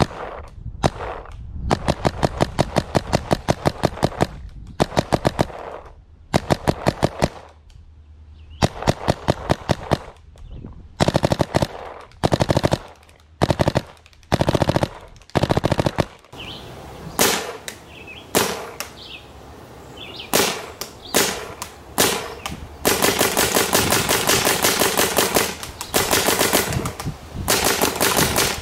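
Paintball marker firing rapid strings of shots, several bursts separated by short pauses, with a longer continuous string near the end.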